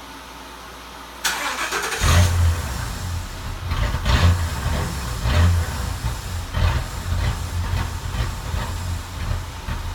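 2007 Ford Crown Victoria's 4.6-litre V8 being started: a brief burst of starter cranking about a second in, then the engine catches and runs with a steady low rumble and brief noisy swells about once a second.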